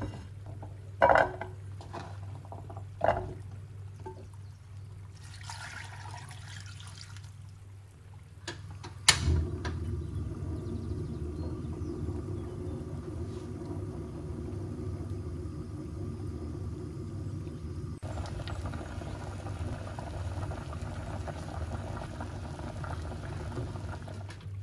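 A few sharp knocks as chunks of pumpkin are dropped into a nonstick saucepan, then about two seconds of water pouring. After a sharp click, a steady hiss and bubbling as the water heats on the hob, which grows fuller in the last few seconds as the pan comes to the boil.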